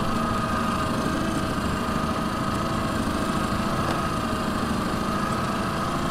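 Boat motor running steadily, an even drone with no change in speed.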